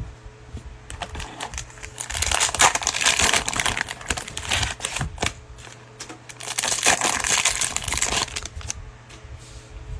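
A trading-card cello pack's plastic wrapper crinkling as it is handled and torn open, in two long spells, about two seconds in and again near the end.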